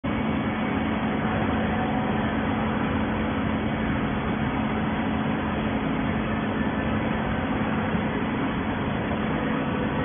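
Hydraulic baler production line running with a steady, even machine noise and a constant low hum, with no strokes or impacts standing out.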